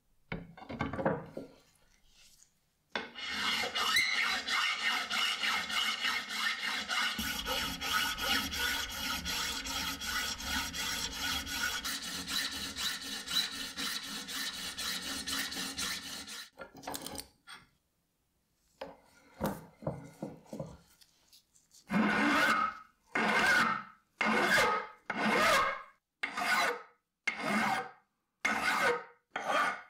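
Hand file rasping over the brass end cap and wooden handle of a cleaver. First a long run of quick, close-together strokes, then after a pause slower separate push strokes, about one a second.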